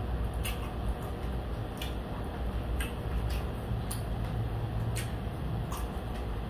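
Chewing crispy fried food: scattered sharp, irregular crunches and mouth clicks over a steady low hum.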